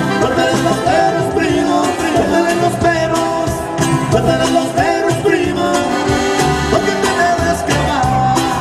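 Cumbia played live by a conjunto band: a Roland digital accordion carries the melody over a steady drum and percussion beat.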